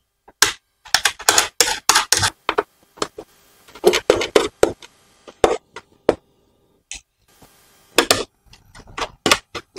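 Irregular clicks and taps of plastic and metal as black knob nuts are threaded by hand onto the metal bolts under a Forever children's tricycle seat and the seat base is handled. The clicks come in short clusters with gaps between.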